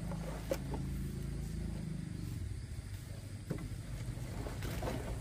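A motor running steadily with a low hum, with a few light knocks or clicks.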